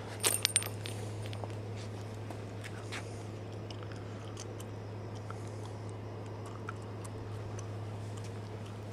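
A brief metallic jingle a few tenths of a second in, then a steady low hum with faint scattered ticks.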